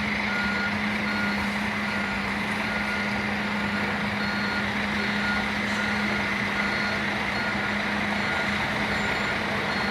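Vehicle reversing alarm beeping steadily, about one beep every three-quarters of a second, over a steady low engine hum.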